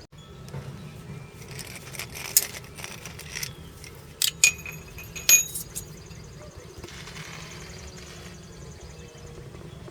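Metal clinking: a few sharp strikes, three of them close together near the middle, with a short ringing after each.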